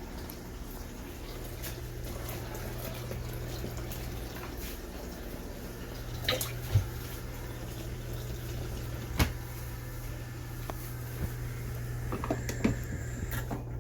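COSTWAY portable mini washing machine running with water sloshing in the tub over a steady low motor hum, and a few sharp clicks about halfway through.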